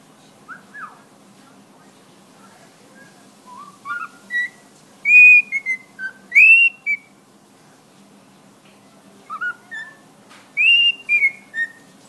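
Cockatiel whistling phrases of a learned tune in clear, high notes with sliding pitch. A couple of faint chirps come early, then two groups of whistled notes, the first about four seconds in and the second about nine seconds in.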